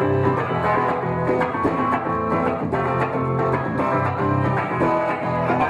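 Punk rock band playing an instrumental passage between sung verses, led by guitars over a steady bass line.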